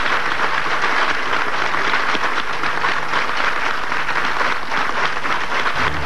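Steady applause from a hall full of assembly delegates, greeting a resolution declared passed unanimously.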